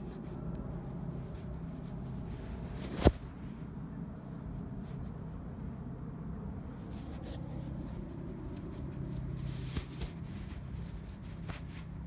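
Steady low background rumble with one sharp click about three seconds in, and faint ticks and rustling as the camera is moved.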